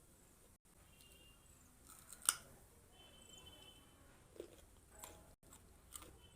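Biting and chewing raw carrot: a sharp loud crunch about two seconds in, then softer crunches every second or so.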